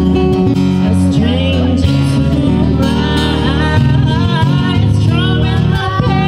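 A live song: acoustic guitar played under a singer's voice through a microphone.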